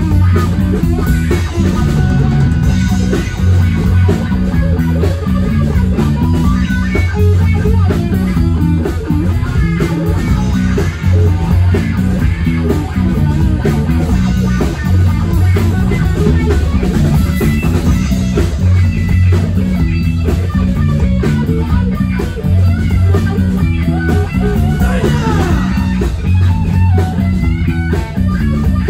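Live rock band playing loud and steady: electric guitar over bass and a drum kit.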